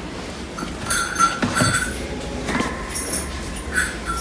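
Metal clinking and squealing, with a few knocks and a thin high squeak that keeps recurring.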